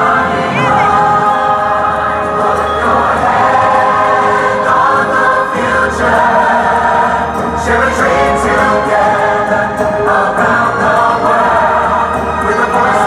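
Choral music with a full choir singing sustained chords over orchestral backing, played loudly over outdoor park loudspeakers as a fireworks show soundtrack.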